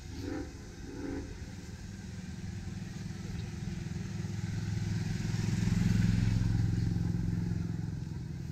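Engine of a small utility cart running as it drives past, growing louder to a peak about six seconds in and then fading away.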